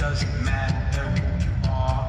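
Loud electronic pop music over an arena sound system: heavy bass and a steady beat of about four sharp hits a second, with held melodic notes above.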